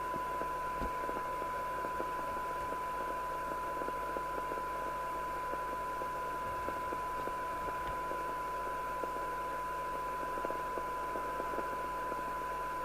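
Steady 1 kHz test tone over a background hiss, played by a Harvard H407 CB receiver as it demodulates a tone-modulated test signal while its IF stages are peaked.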